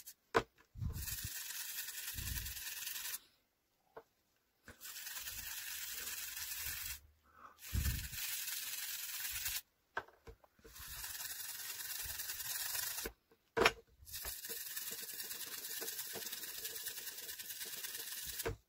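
A toothbrush scrubbing small plastic toy truck parts in soapy water, close up, as a steady bristly hiss. The scrubbing comes in several stretches of two to four seconds that stop abruptly into silence, with a few sharp clicks and bumps of the parts being handled.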